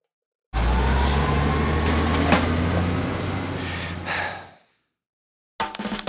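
Truck engine sound effect for a LEGO dump truck: a low steady rumble that starts abruptly, runs for about four seconds with a sharp click about two seconds in, then fades away.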